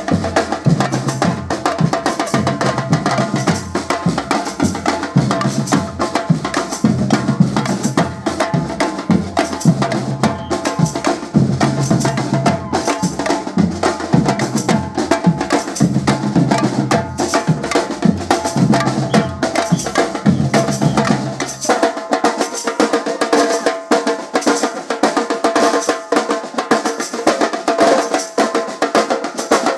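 A samba band playing: surdo bass drums, snare drums and shakers beat a driving samba groove. About two-thirds of the way through, the bass drums drop out and the higher drums and shakers keep playing.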